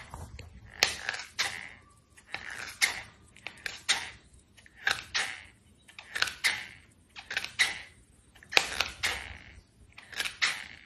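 A cat gnawing on the edge of a foam slide sandal: a crunchy bite about once a second, each one a quick cluster of crackling clicks.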